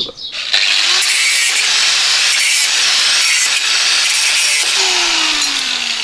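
Angle grinder cutting through a bicycle wheel's spokes to free the rim: a steady, loud hissing grind that starts about half a second in, with a whine sliding down in pitch near the end.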